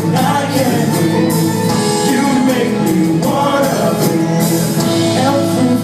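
Live band music with a singer's voice over steady sustained instrument chords.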